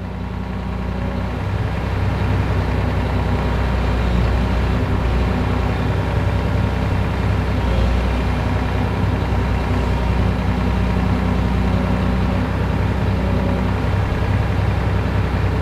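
Volvo EC460 excavator's diesel engine running steadily, heard from inside the cab as a constant low hum.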